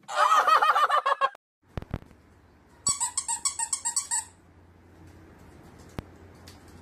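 A loud, warbling, honk-like cry lasts about a second. Then a squeaky toy is squeezed rapidly, about ten sharp squeaks in a second and a half.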